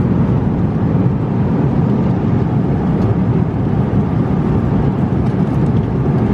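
Airliner cabin noise in cruise flight: a steady, loud low rumble of the engines and rushing air, heard inside the cabin.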